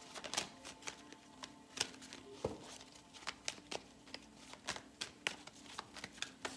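A deck of tarot cards being shuffled by hand, overhand: cards slipping and slapping from one hand into the other in quick, irregular crisp clicks, several a second.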